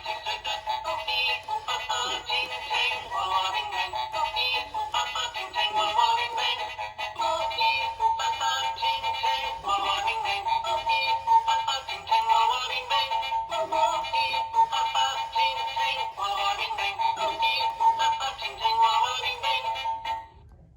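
A Halloween animated eyeball doorbell plays a sung electronic tune through its small speaker. The sound is thin, with no bass, and cuts off abruptly near the end.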